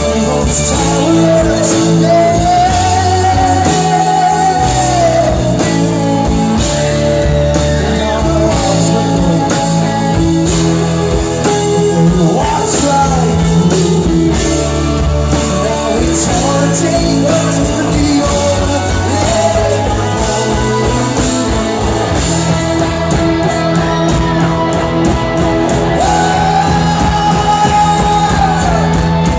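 Rock band playing live: a male lead vocal sings over electric guitars, bass and a drum kit.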